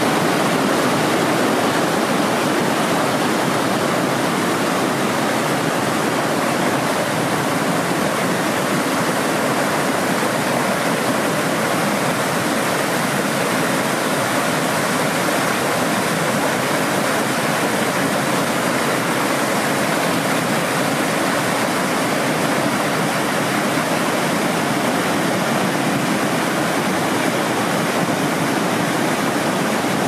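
Steady, loud rush of water from a fast-flowing mountain stream cascading over rocks, with no breaks or changes.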